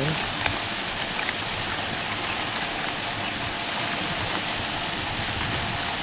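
Steady rush of falling water from a waterfall.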